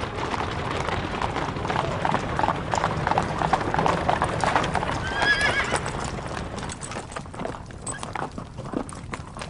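Hooves of several horses clopping on paved ground as horses and chariots move past. A horse neighs briefly about five seconds in. The hoofbeats grow quieter and sparser after about six seconds.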